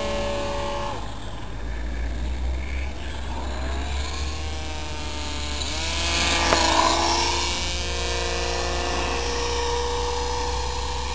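Electric RC foam plane's geared HIMAX brushless motor and propeller whining in flight. The pitch drops about a second in, then glides up and is loudest around six to seven seconds in before holding steady.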